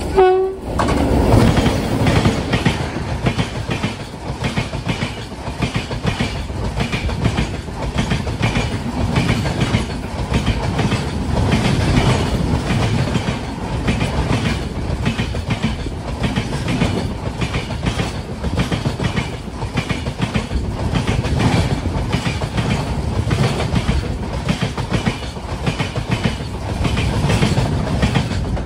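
Passenger train running at speed, its wheels clattering steadily over the rail joints with a continuous rumble.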